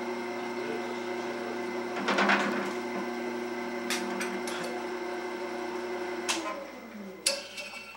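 Wood lathe running at its lowest speed with a steady hum while a drill bit in the tailstock chuck bores into a spinning holly blank, with a burst of cutting noise about two seconds in and a few sharp clicks. Near the end the hum falls in pitch as the lathe spins down.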